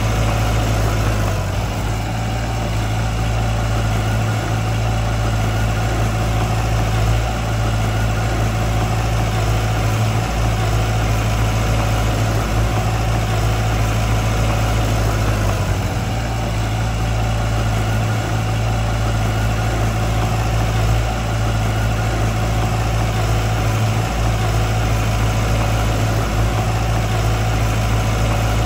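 Diesel engine of heavy construction machinery running steadily with a deep, even hum.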